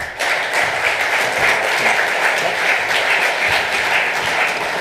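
Audience applause, starting suddenly and holding steady.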